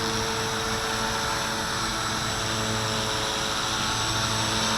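Walkera V450D01 450-size collective-pitch RC helicopter hovering: a steady electric motor whine and rotor whir at an even pitch and level.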